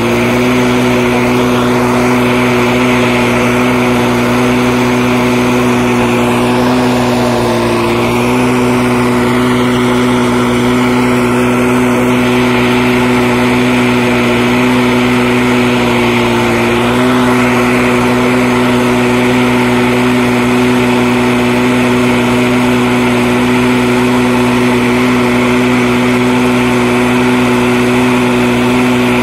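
Small portable engine running steadily at a constant high speed, its pitch dipping briefly twice.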